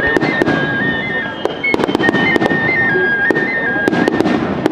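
Fireworks going off, a rapid string of sharp bangs and crackles, over a simple high-pitched electronic chime melody that repeats about every two seconds.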